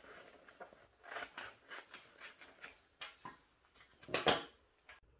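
Scissors snipping through a folded sheet of paper in a quick series of short cuts, then paper rustling, with a louder rustle about four seconds in as the cut-off strip and scissors are put aside.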